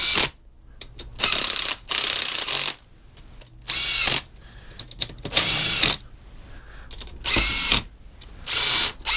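Hand ratchet wrench clicking in short bursts, about eight strokes of half a second to a second, running engine bolts in loosely, snug but not torqued.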